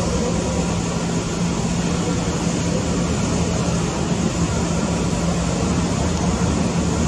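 Airbus A320-214's CFM56 turbofan engines running at takeoff thrust as the airliner lifts off and climbs out: a steady jet noise with a low hum beneath it.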